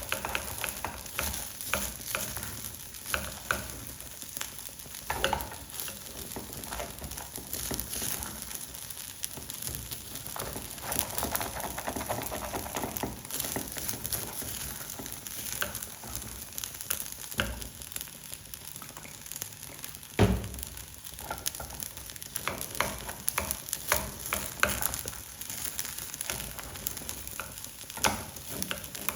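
Raw rinsed rice frying in oil in a non-stick pot: a steady sizzle with a spoon stirring and scraping through the grains, and one louder knock against the pot about two-thirds of the way through.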